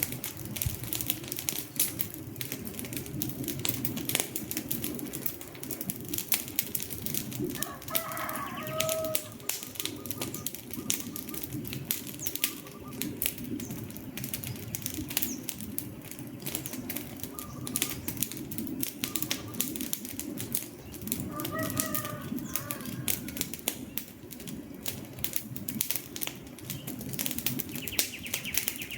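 Wood fire crackling with many irregular pops and snaps over a low, steady rumble of burning logs.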